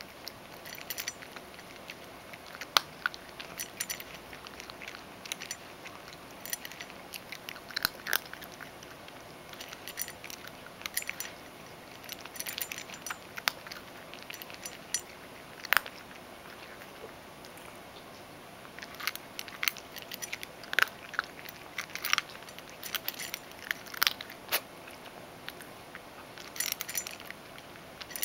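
Ragdoll cat crunching dry kibble from a stainless steel bowl: irregular sharp crunches and chews, with a pause of a few seconds past the middle.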